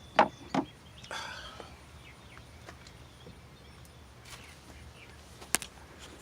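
Handling noise: two sharp knocks close together, a brief rustle, scattered faint ticks and one sharp click near the end, over a quiet outdoor background.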